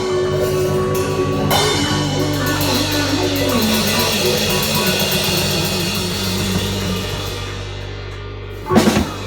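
Rock band music with drums and electric guitar: a held chord under cymbal wash, with a line that wavers and steps down in pitch, then a sharp hit on the whole band near the end.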